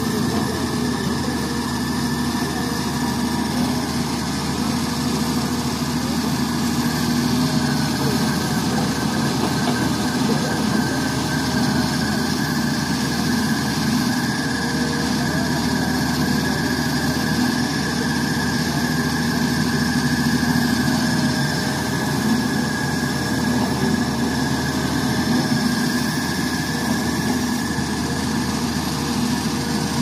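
SDLG crawler excavator's diesel engine running steadily as the machine digs soil, with a steady high-pitched whine over the engine note.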